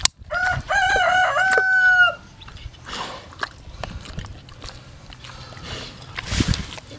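A rooster crowing once, about two seconds long: a broken call that ends in a long held note.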